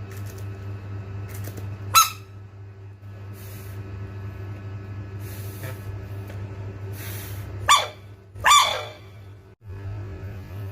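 A frog giving three short, squeaky calls, the first about two seconds in and the last two close together near the end, over a steady electrical hum.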